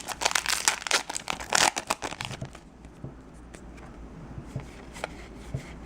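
Foil wrapper of a Yu-Gi-Oh booster pack crinkling and tearing in the hands for about the first two and a half seconds, then quieter with a few light clicks of card handling.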